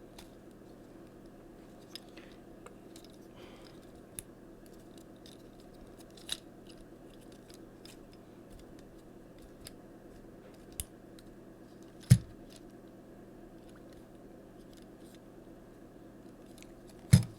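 Plastic parts of a Transformers Siege Hound action figure clicking as it is handled and transformed: scattered faint clicks, with two sharper, louder clicks about 12 seconds in and near the end, over a steady low hum.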